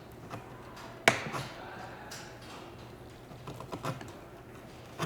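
Handling taps and knocks on a work surface: one sharp tap about a second in, then a few lighter clicks near the end, over a low steady hum.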